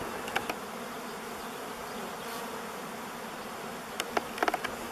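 Honeybees buzzing steadily in a dense hum at a wooden hive entrance, with a few faint clicks about four seconds in.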